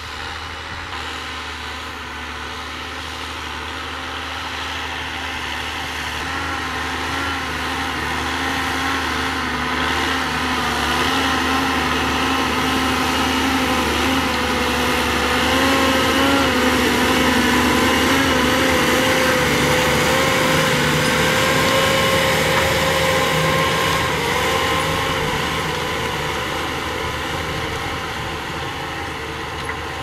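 John Deere farm tractor's diesel engine working under load as it pulls a disc harrow through the soil, with a slightly wavering pitch. It grows louder as the tractor comes close past the microphone midway, then fades as it moves away.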